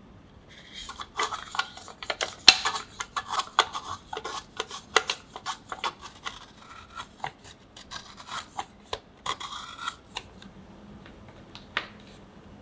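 A block of chocolate scraped across a metal grater, a quick irregular run of rasping strokes with shavings dropping onto the chocolate fudge below. The grating stops about two seconds before the end, followed by a single light knock.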